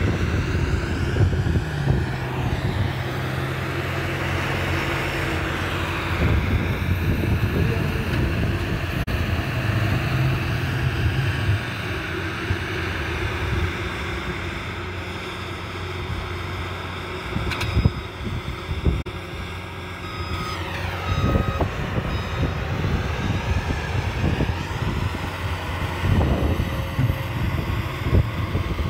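Compact cab tractor's diesel engine running at work as it pushes snow with its front loader, the engine note shifting with the load. A few sharp clunks come a little past the middle.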